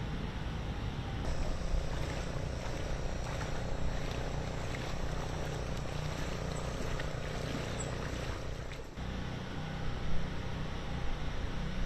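A steady motor drone with strong low rumble. It breaks off sharply for a moment about nine seconds in, then carries on.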